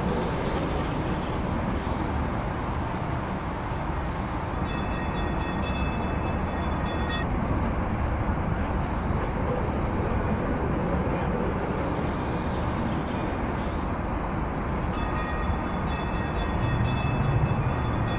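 A streetcar running on rails, with a steady rumble of wheels on track. Twice, a high steady tone with several pitches comes in for about three seconds, a few seconds in and again near the end.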